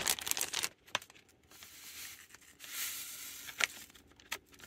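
Plastic zipper storage bag with chicken and marinade inside crinkling and rustling as it is handled, with a few sharp clicks in between.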